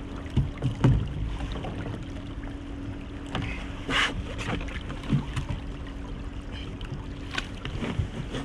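Water lapping and splashing against the hull of a drifting inflatable boat, with a faint steady low hum underneath. Scattered short knocks and rattles come and go, with a louder rustling burst about four seconds in.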